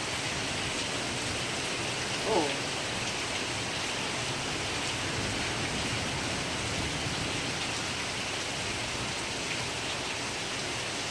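Steady heavy rain falling, an even hiss. A brief voice sound about two seconds in.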